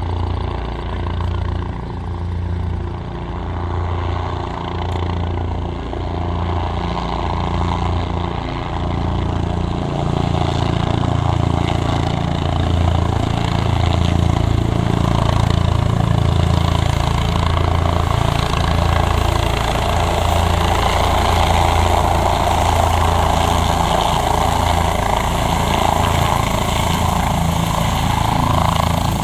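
Police helicopter flying in and descending to land, its rotor beating in a steady low pulse over the engine. It grows louder from about a third of the way in as it comes close and low.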